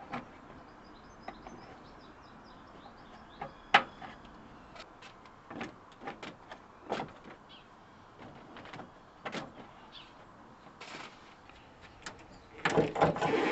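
Plastic push-clips and trim of an engine-bay top cover being pressed and knocked into place by hand: a series of separate sharp clicks and knocks, the sharpest about four seconds in. A denser run of louder knocks comes near the end.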